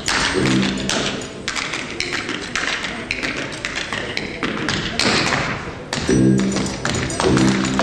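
Tap shoes striking the stage floor in quick, dense runs of taps, over background music whose pitched notes come in near the start and again from about six seconds in.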